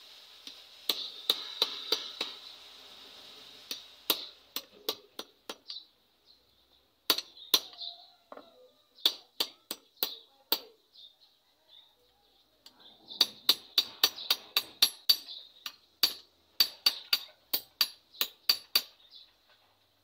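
Claw hammer striking a red-hot steel blade on a small steel block anvil: runs of sharp, ringing metal-on-metal blows, about two to three a second, with short pauses between the runs.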